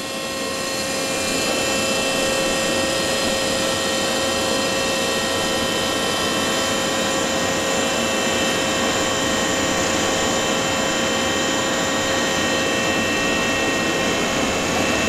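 Filter press's hydraulic opening drive running: a steady motor-and-pump whine with a hiss underneath, which builds over the first second or so and then holds level while the press opens.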